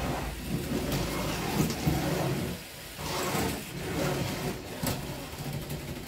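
Lego combat robots' small electric drive motors and gears whirring in bursts as the two robots shove against each other, with brief pauses between pushes and a few sharp clicks.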